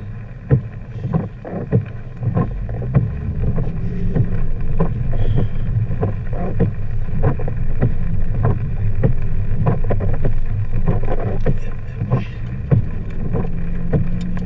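A vehicle driving in rain, heard from inside the cab: a steady low road and engine rumble, with the windshield wipers running and irregular ticks and knocks over it.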